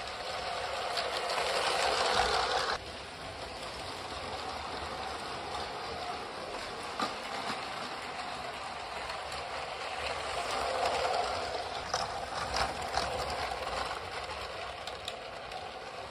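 Lego City trains, including the 60337 Express Passenger Train, running on plastic Lego track: the small electric motors whir and the wheels rattle and click over the track joints. The sound is loudest at first and drops sharply about three seconds in. It swells again later, with a few sharper clicks near the end.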